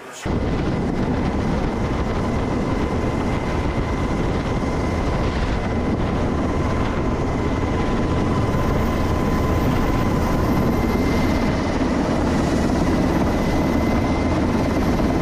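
Aircraft engines running on an aircraft carrier's flight deck: a loud, steady roar with a faint steady whine. It cuts in suddenly at the very start.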